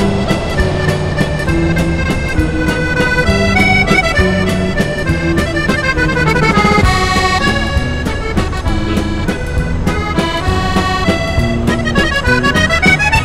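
Accordion music: a lively tune over steady bass chords, with quick runs of notes sweeping down around the middle and up again near the end.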